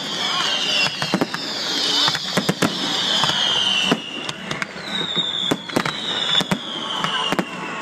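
Fireworks display: a rapid run of bangs and crackling pops, with several high whistles falling in pitch through it.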